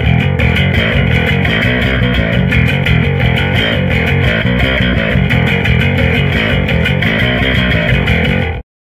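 Custom electric bass guitar played through a bass cabinet with both pickups, the humbucker and the Precision pickup, blended together: a steady run of quick notes. The playing cuts off abruptly near the end.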